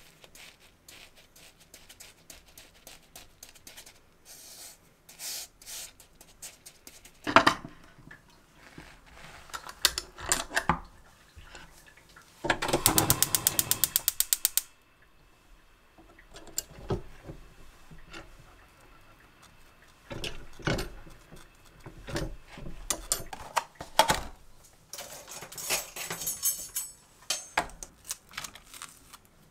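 Kitchen handling sounds: a metal spoon scraping sugar across a croissant on a ceramic plate, and clacks as a square stovetop waffle pan is handled. About halfway through, a gas range's igniter clicks rapidly, about ten clicks a second for two seconds, and the burner lights. Near the end, rustling and knife cuts as strawberries are hulled over a plastic punnet.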